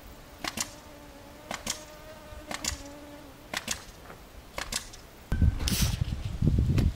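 Sparse background music: a soft double tick about once a second over a faint held tone. About five seconds in, a loud low rumble comes in with a steady high whine.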